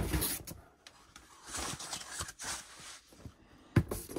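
Boxed vinyl figures being shifted around inside a cardboard shipping box: rustling and scraping of cardboard and plastic, with two knocks near the end.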